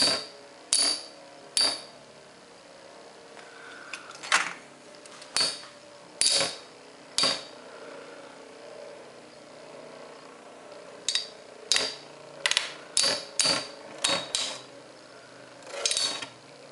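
Two Metal Fight Beyblades, Hell Kerbecs and Flame Byxis, spinning against each other, their metal wheels clashing in sharp, briefly ringing clicks. The hits come every second or so at first, then in a quick run of about eight near the end.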